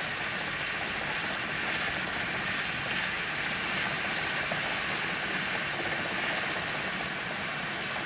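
Steady hiss of the steel ploughing cable running around the pulley under a steam ploughing engine, even and unbroken.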